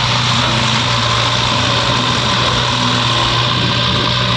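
Diesel engines of an Eicher 485 tractor and a JCB 3DX backhoe loader running steadily under load: the backhoe is pushing a loaded trolley that is stuck in sand while the tractor pulls it.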